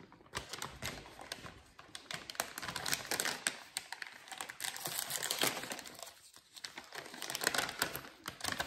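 Plastic bag of shredded cheddar crinkling as it is handled, an uneven run of crackles with a short pause about two-thirds of the way through.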